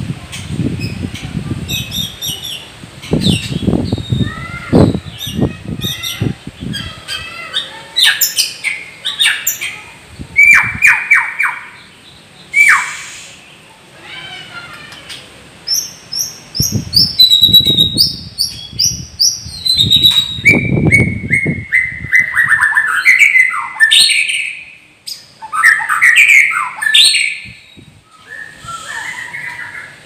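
White-rumped shama (murai batu) singing from its cage: a long, varied song of rapid repeated notes, trills and whistled glides rising and falling in pitch, delivered in phrases with short pauses between them.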